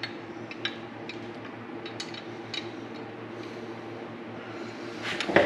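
Faint scattered clicks and taps as a metal dipstick tube is worked by hand into place on an LS3 engine, over a steady low hum, with a brief louder sound near the end.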